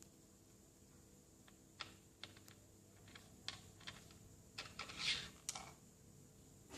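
Dry cat biscuits clicking and rattling as a kitten nudges them and drops one into her food bowl: a scatter of light, irregular clicks, busiest about five seconds in.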